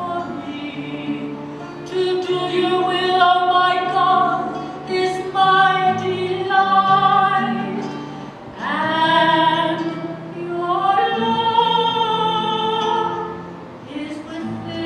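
Sacred music at Mass: a voice sings long, held melodic lines over steady, sustained low accompaniment notes.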